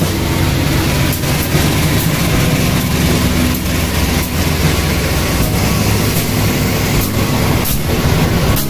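Engine of a KAI CC203 (General Electric) diesel-electric locomotive running steadily close by: a loud, low hum with a few sharp clicks over it.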